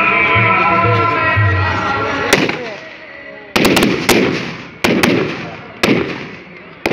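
Music plays for the first two seconds. Then fireworks go off: a sharp bang, followed by about seven more, some in quick clusters of two or three, each trailing a short echo.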